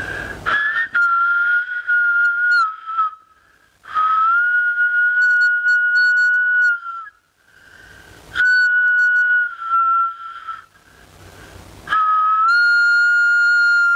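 Cast glass kōauau (Māori flute) played in four long, breathy held notes, each lasting two to three seconds and dipping slightly in pitch near its end, with short breaths between them.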